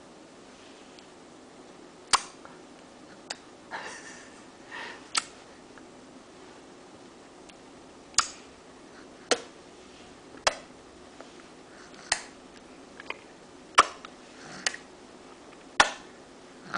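A baby making sharp clicking sounds with her mouth, about a dozen, irregularly spaced a second or two apart, with a couple of soft breathy sounds between. This clicking is her practised noise-making trick.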